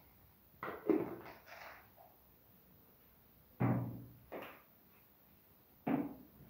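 Kitchen utensils knocking: a short clatter of several quick taps about a second in, then three separate knocks that each die away quickly.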